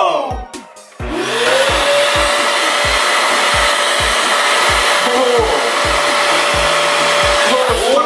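Canister vacuum cleaner switched on with its floor head removed, sucking air through the bare metal wand. Its motor whine rises as it spins up about a second in, then runs steady with a rushing of air, and winds down near the end.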